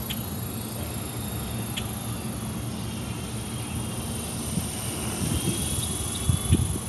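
Small electric fixed-pitch RC helicopter (Honeybee FP) in flight: a thin high whine from its motor and rotor that wavers slightly in pitch, over a low rumble, with a few short thumps near the end.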